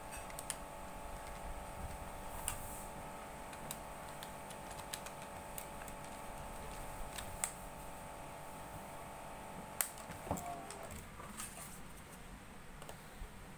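Keys of a Taksun TS-3821TA desk calculator pressed one at a time: scattered light clicks every second or two, over a steady faint hum that stops about ten seconds in. The calculator has fresh batteries but is not working.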